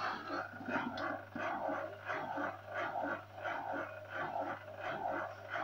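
Zanussi ZTI 823 washing machine's drain pump chugging in regular pulses, about two to three a second, over a steady low hum, during a fast-spin program.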